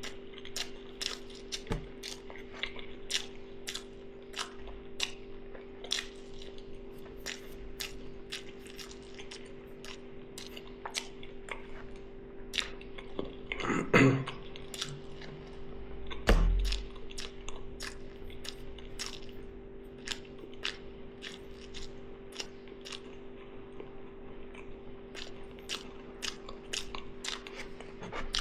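A person chewing food close to the microphone: wet mouth clicks, one or two a second, over a steady low hum. About halfway through there is a louder short throat sound, and a couple of seconds later a low thump.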